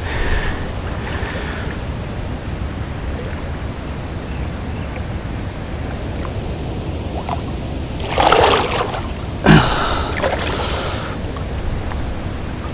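Shallow creek water sloshing around a person wading, over a steady low rush. Two loud splashes come about eight and nine and a half seconds in, the second starting sharply, as a big flathead catfish is wrestled up by hand.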